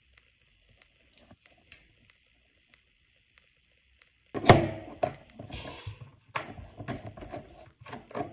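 Phone parts and small tools being handled on a work surface during a phone teardown. It is quiet for about four seconds, then there is a sharp thunk followed by a string of clicks, knocks and rustling.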